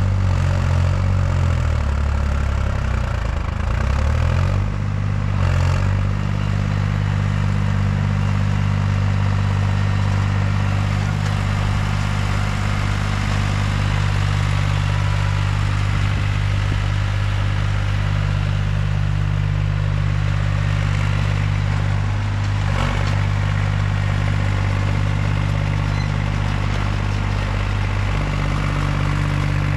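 Heavy equipment engine running. Its speed dips and rises a few times in the first six seconds, then holds steady. A single knock sounds about 23 seconds in.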